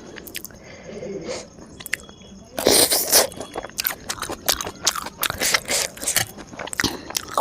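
Close-miked eating: soft wet chewing and mouth clicks, then a loud crunchy bite about two and a half seconds in, followed by steady crunching and chewing.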